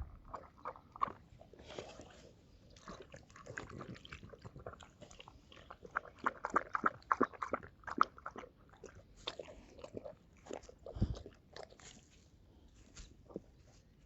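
An animal chewing and crunching on something: a run of crisp, irregular crunches and clicks, thickest in the middle, with a dull thump near the end.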